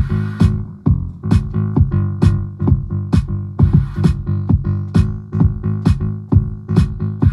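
Electronic dance music played live on a drum machine and sampler: a steady beat of about two hits a second over held bass notes, with a hissing cymbal-like swell at the start and again about halfway through.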